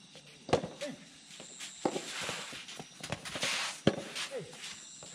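Soft tennis rally: rackets striking the soft rubber ball with sharp pops, three loud hits a second and a half to two seconds apart, the first being the serve. Shoes scuff on the court between the hits.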